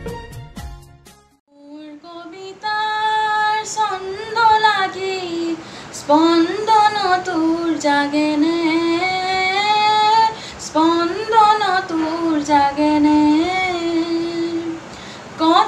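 A music passage fades out in the first second or so. After a short pause, a woman sings solo and unaccompanied: a slow Assamese melody with long held, gliding notes.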